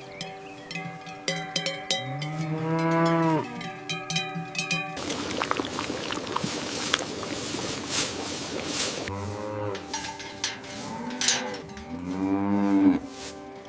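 Dairy cows mooing several times, each call a long rise and fall in pitch, the loudest one near the end. Between the calls there is a few seconds of hissing noise.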